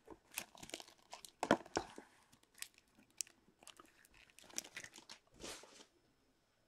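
Foil trading-card pack wrapper crinkling and cards sliding against each other as they are drawn out by hand, in faint, scattered short crackles and clicks.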